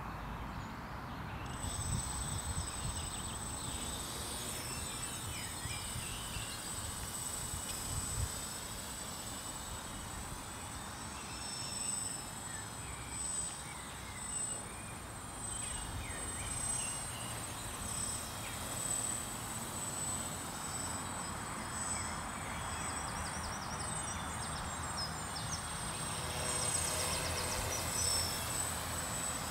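Quadcopter in flight, heard as a steady high-pitched whine that starts about a second and a half in, with wind gusting on the microphone and birds chirping.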